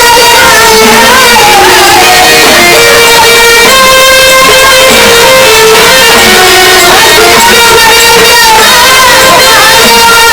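Loud gondhal folk music: a held, wavering melody line over a plucked string instrument, with no break.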